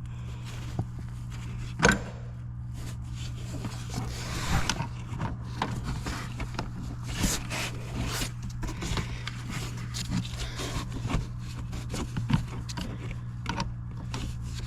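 Hands working a power steering hose fitting with a fresh O-ring into place, giving scattered small clicks and scrapes of metal and rubber parts over a steady low hum.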